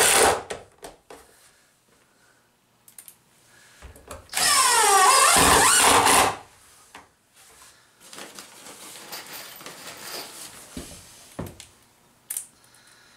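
Cordless drill driving screws through a Teflon strip into a wooden sleigh runner. One run ends just after the start and another of about two seconds comes about four seconds in, its motor pitch falling as it goes. A few small clicks of handling come in between.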